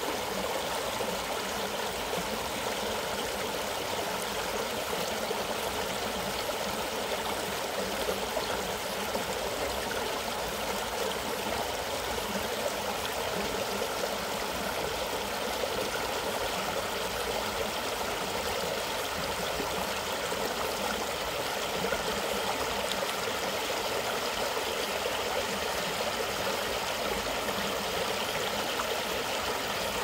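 River water flowing fast over rocks in a shallow riffle, a steady, even rushing with no pauses.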